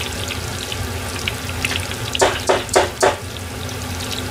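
Chicken karaage deep-frying in a pot of oil, a steady crackling sizzle with a few louder pops in quick succession a little past the middle. The chicken is still frying hard and not yet crisp.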